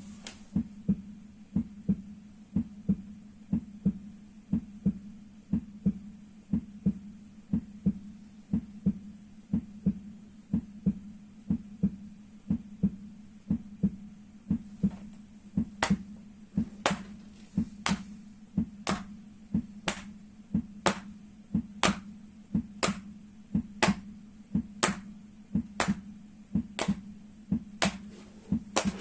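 Soles of the feet being struck in a heartbeat rhythm: sharp slaps in a regular double beat, about one pair a second, over a steady low hum.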